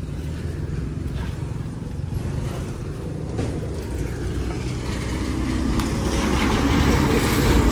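An engine running steadily with a low rumble, growing louder over the last two seconds.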